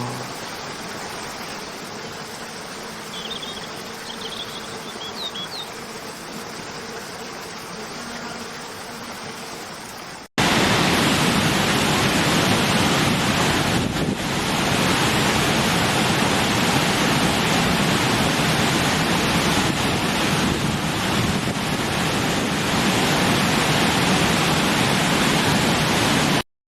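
Steady outdoor rushing noise, with a few short high chirps about three to five seconds in. After a sudden cut about ten seconds in, a much louder, even rushing noise runs on and then cuts off abruptly just before the end.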